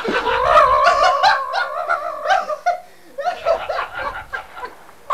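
A man's high, drawn-out, wavering voice breaking into laughter, then a short lull about three seconds in and more laughing.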